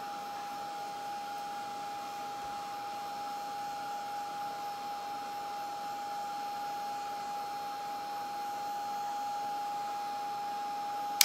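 Handheld Ranger craft heat gun running, a steady rush of blown air with a steady high whine, used to dry paint on a polymer clay piece. It cuts off suddenly with a click at the end.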